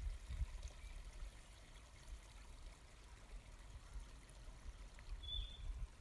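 Faint room tone: a low steady rumble under a soft hiss.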